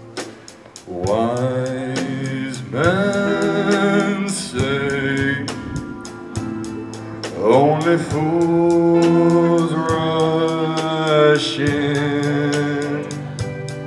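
Live band playing a song: a man sings long held notes with vibrato into a microphone over keyboard, acoustic guitar and drums.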